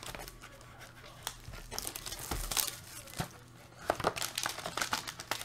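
Wrapped trading-card boxes and packaging being handled: plastic wrapping crinkling and tearing, with a few light taps, and the rustling getting busier near the end.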